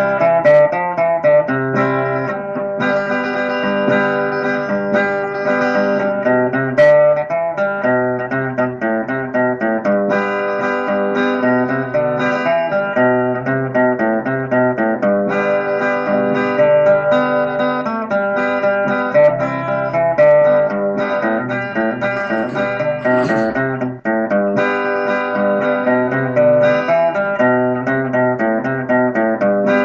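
Solo steel-string acoustic guitar playing an instrumental tune, with picked melody notes over a moving bass line.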